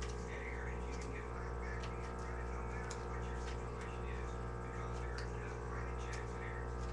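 A steady low hum runs throughout, with scattered faint ticks and clicks over it.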